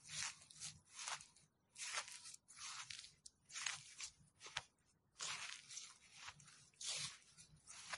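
Footsteps crunching through dry leaves, about one step a second, each step a short rustling crunch.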